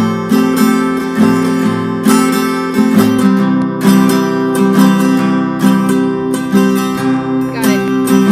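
Background music of a strummed acoustic guitar playing chords in a steady rhythm, starting suddenly at full level.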